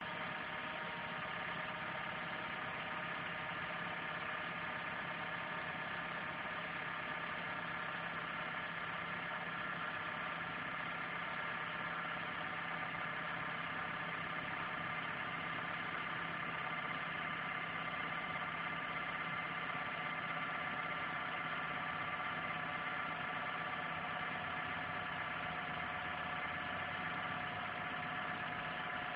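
Daihatsu YRV engine running steadily, with several steady whining tones over the engine noise; the owner hears this as an abnormal extraneous noise.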